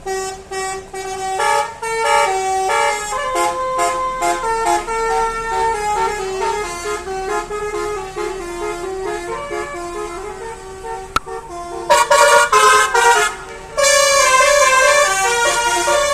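Bus musical 'telolet basuri' horn playing a melody of short stepped notes, then, about twelve seconds in, a louder multi-tone telolet horn sounding in chords.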